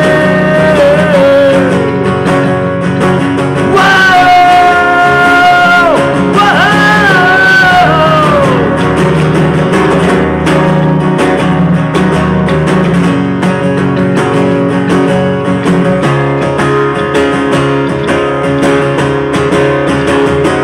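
Live acoustic guitar strumming with a bass guitar. A man's voice holds long sung notes over it during the first eight seconds or so, then the two instruments carry on alone.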